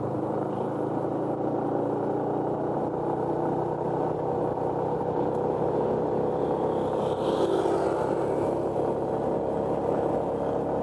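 Yamaha Exciter 150 motorcycle's single-cylinder four-stroke engine running at a steady speed while riding, holding an even note.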